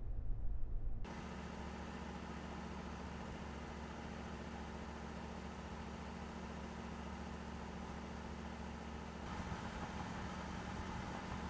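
Chevrolet Silverado High Country pickup driving at highway speed while pulling an enclosed cargo trailer: a steady engine hum over tyre and road noise. For about the first second there is only a low in-cab rumble; it then changes abruptly to the running truck, which gets slightly louder and brighter near the end.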